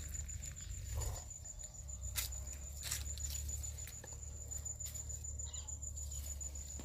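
Garden ambience: a steady high insect drone over a low rumble, with a few soft clicks and rustles from handling the bean plants and bowl, the clearest about two and three seconds in.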